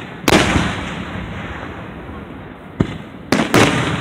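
Aerial fireworks shells bursting overhead. There is one big boom a moment in that dies away over about a second, then three more booms in quick succession near the end.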